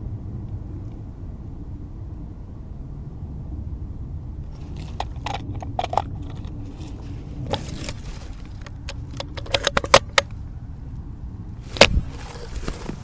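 Brush and a ghillie suit rustling, with gear clicking and jangling, as a camouflaged player pushes through undergrowth over a steady low rumble. The clicks come thickest a little before the end, followed by one sharp knock near the end.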